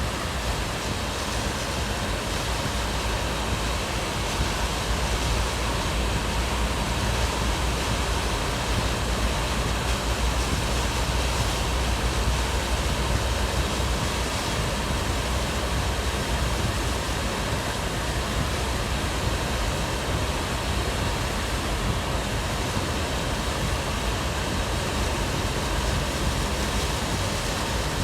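Hurricane wind blowing hard across the microphone: a steady, loud rushing noise with heavy low rumble.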